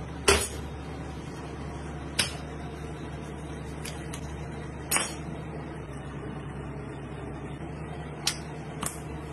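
Sharp knocks and slaps of monkfish and a chef's knife on a cutting board, about seven in all, the loudest just after the start, over a steady low kitchen hum.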